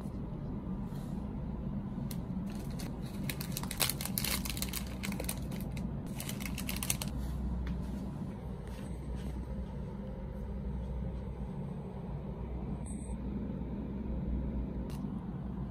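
Small cream-filled wafer roll pieces tipped from a crinkly plastic snack wrapper onto a paper plate: a run of light clicks and crinkling for a few seconds, then only a steady low hum.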